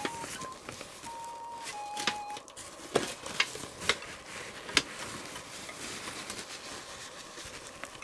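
Tissue paper in a foil tray rustling and crackling as hands handle a kitten on it, with several sharp crackles a few seconds in. A few soft, steady notes of a melody play in the first two seconds.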